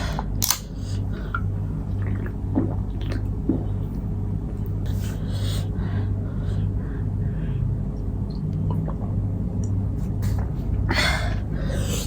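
A person eating, with chewing and small mouth and food sounds, over a steady low hum; a louder, longer noisy eating sound comes near the end.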